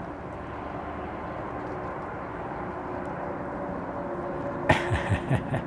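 Steady distant engine rumble over open-air ambience. About three-quarters of the way through, a quick series of sharp splashes as a hooded merganser bursts off across the water.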